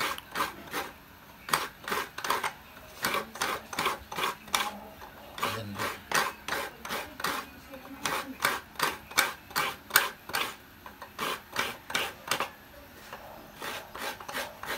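Fresh coconut being grated by hand: the coconut half is scraped over a fixed metal grater in short rasping strokes, about two to three a second, with a brief pause near the end.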